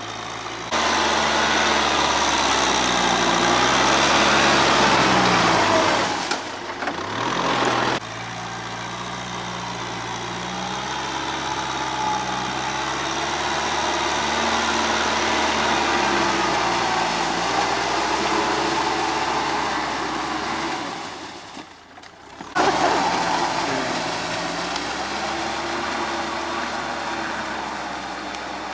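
Kubota M6040SU tractor's diesel engine running under load while pulling a Maschio rotary tiller through wet paddy mud. Its pitch rises and falls with the load. The sound breaks off abruptly and changes twice, about six and twenty-two seconds in.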